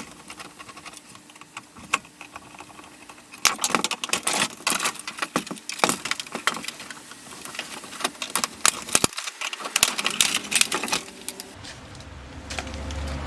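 Plastic and metal laptop parts being handled and pried apart by hand: dense runs of clicks, snaps and small rattles. A low steady hum comes in near the end.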